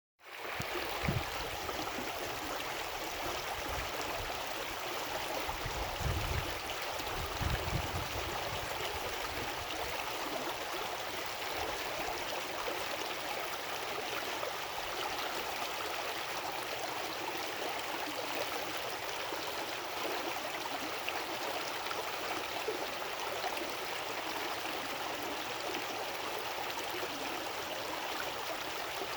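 Brook water running, a steady rushing with gurgles. A few low rumbles come in the first eight seconds.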